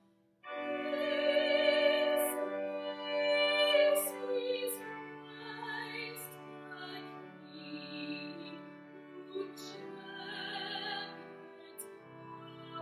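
A woman singing solo in a trained, vibrato-rich voice over church organ accompaniment that holds long, steady chords. The music starts about half a second in.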